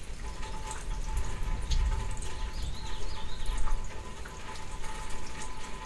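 Steady rain falling on grass and trees, a continuous hiss with many scattered drop ticks.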